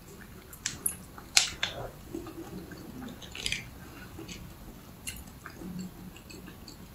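Soft wet mouth sounds of eating a jelly squeezed from a stick sachet: a few scattered small clicks and squishes as it is chewed, the strongest about a second and a half in.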